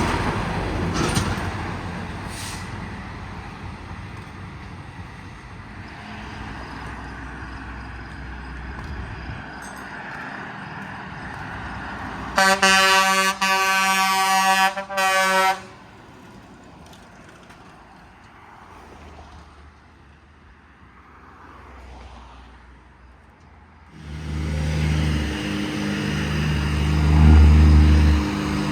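Truck air horn blown in several quick blasts over about three seconds, one steady pitch, loud over the road noise. Near the end a heavy vehicle's engine comes up loud as it passes.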